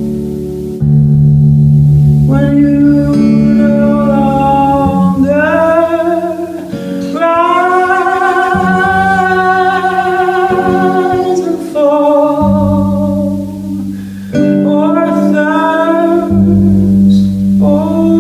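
A woman singing live while playing an acoustic guitar. She holds one long note near the middle, with guitar chords underneath.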